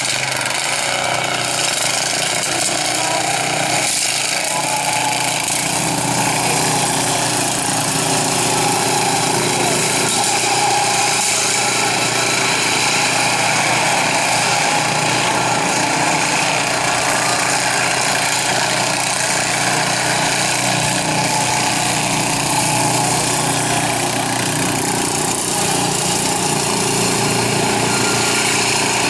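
Racing lawn mowers' small engines running hard as they lap a dirt track, their pitch wavering up and down with the throttle.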